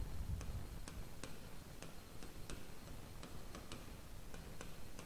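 Stylus pen clicking and tapping on a tablet screen during handwriting: short sharp clicks at uneven spacing, two or three a second, over a low room hum.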